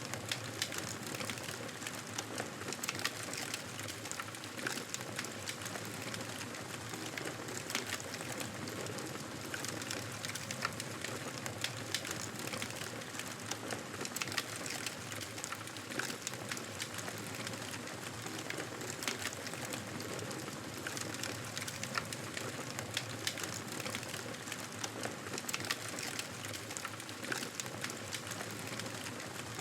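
Wood fire crackling in a fireplace: a steady hiss with frequent sharp snaps and pops scattered throughout.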